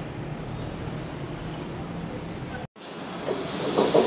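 Steady low hum of street traffic and an idling engine, which cuts off abruptly. Then come the loud hiss and sizzle of food frying in woks on a restaurant gas range, with a ladle clattering in the wok near the end.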